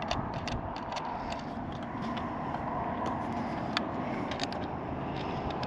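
Wind buffeting the microphone as a steady rushing noise, with a scatter of small sharp clicks and taps throughout.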